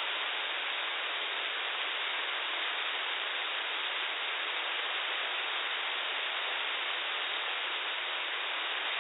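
Steady radio static from a weather radio receiver: an even hiss with no voice, as the broadcast's synthesized voice drops out in the middle of a warning.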